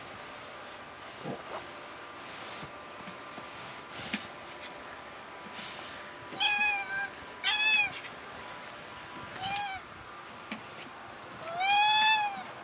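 Domestic cat meowing during play: three short meows in quick succession about halfway through, then one longer meow near the end, each rising then falling in pitch.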